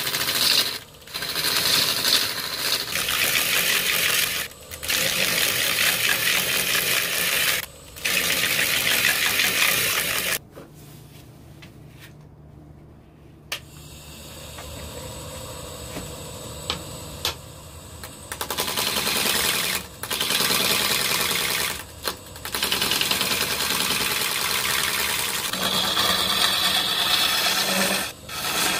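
Wood lathe turning a large Kaizuka juniper log blank while a turning tool cuts into it: a loud, rough cutting noise, broken by short pauses as the tool comes off the wood. For about eight seconds in the middle the cutting stops and only the lathe's quieter running hum is left, then the cutting starts again.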